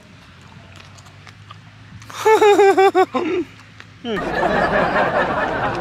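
Laughter: a quick run of about six high 'ha' pulses about two seconds in, with a short trailing one after it. From about four seconds a dense, muffled wash of noise comes in and stays loud.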